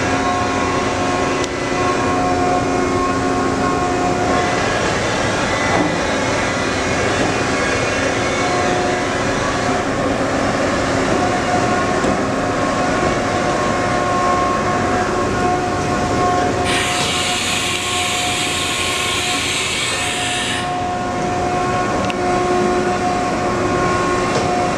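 Haas VF-6 CNC vertical machining center running: a steady mechanical hum with several steady whining tones that come and go. About two-thirds of the way through, a loud hiss joins in for about four seconds, then cuts off.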